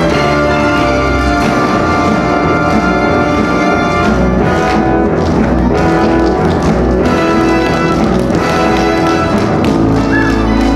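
Loud orchestral music playing steadily.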